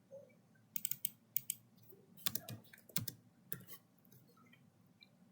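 Computer keyboard and mouse clicks in short, irregular clusters of sharp taps.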